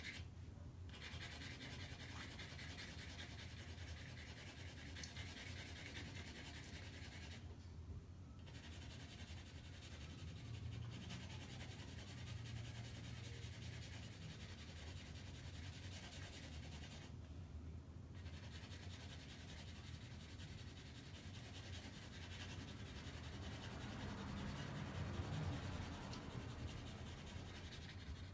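Graphite pencil shading on paper: a quick back-and-forth wrist stroke making a steady scratchy rubbing, with three brief pauses as the pencil lifts.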